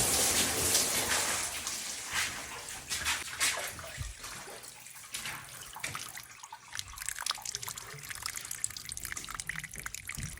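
Water spraying and hissing from a leaking failed pinch clamp on a water line. The hiss fades over the first few seconds and gives way to irregular dripping.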